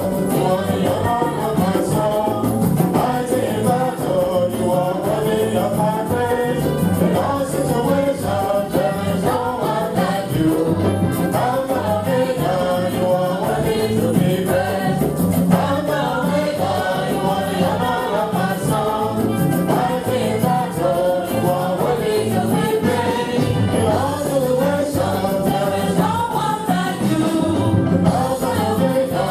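A church congregation or choir singing a gospel song over steady rhythmic accompaniment with a continuous beat.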